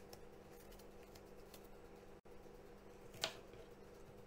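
Near silence with a faint steady hum and a few soft ticks, then one sharp click about three seconds in: a kitchen knife striking a plastic cutting board as a peeled apple is cut.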